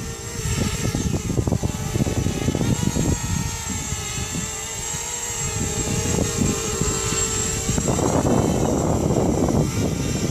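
FPV racing quadcopter's electric motors and propellers whining, the pitch wavering up and down with the throttle, over heavy gusty wind buffeting on the microphone. The noise swells louder about eight seconds in.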